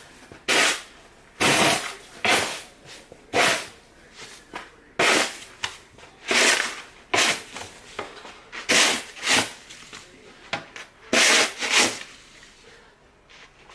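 Snow shovel scraping and crunching through deep snow, a dozen or so short strokes at an uneven pace.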